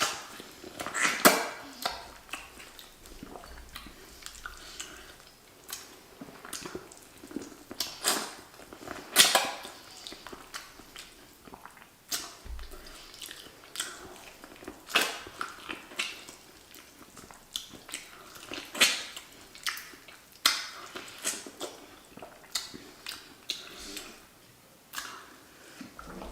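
Close-up mouth sounds of people eating a seafood boil: chewing and wet smacks with irregular sharp clicks.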